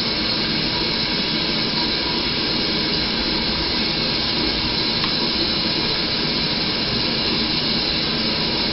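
Steady rushing background noise, even and unchanging, with no distinct events in it.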